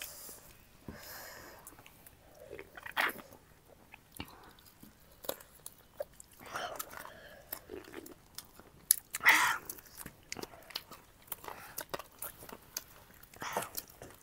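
Close-up eating sounds: chewing and biting food, with a string of crunches and small wet mouth clicks, and a few louder bites about 3 and 9 seconds in.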